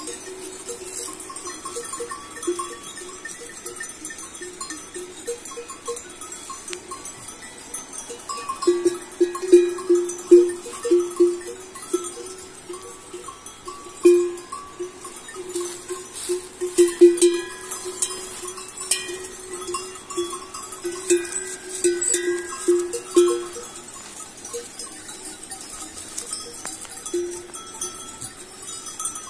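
Metal bells on a grazing flock of sheep and goats clanking at irregular intervals as the animals move and feed. The bells ring one note over and over, struck in quick clusters that are loudest through the middle.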